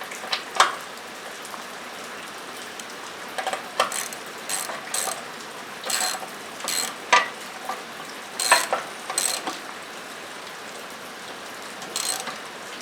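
Socket ratchet clicking in several short runs of strokes as a bolt is tightened, over a steady hiss of rain on a metal roof.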